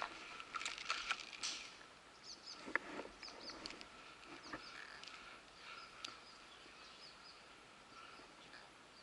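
Footsteps and rustling on dry pine-forest litter and twigs, loudest in the first second or so and then sparse, with small birds chirping faintly.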